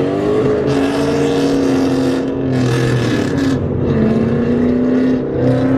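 Ford Mustang GT's three-valve V8 with an aftermarket exhaust, running steadily at part throttle while driving. Its pitch dips a little partway through and rises again near the end.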